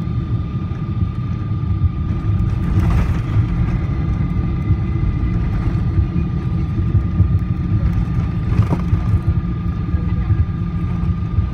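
Cabin noise of a Boeing 777-300 airliner taxiing after landing: a loud, steady low rumble with a constant faint whine. Two brief knocks come about three and nine seconds in.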